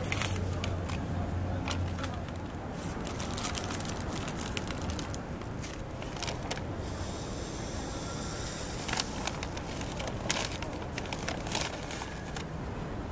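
Crinkling and crackling of a biscuit packet's paper wrapper as it is handled and torn open, in irregular bursts, the sharpest near the end, over a steady low background hum.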